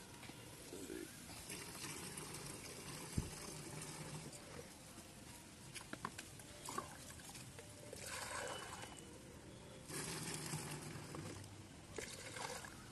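Liquid poured from a small plastic jug through a strainer into a plastic knapsack sprayer tank, splashing and trickling in spells, about eight seconds in and again from about ten seconds. A single knock comes about three seconds in.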